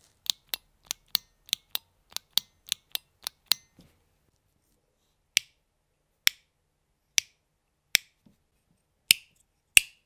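Latching switches clicking, held close to the microphone. First a red-capped latching push-button switch is pressed repeatedly, about a dozen crisp clicks at roughly four a second. After a pause of about two seconds come six single, louder clicks about a second apart as a white wall-type switch and then a rocker switch are flicked.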